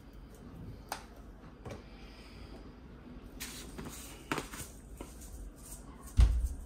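Kitchen handling sounds: a few light clicks and taps, then a dull low thump about six seconds in.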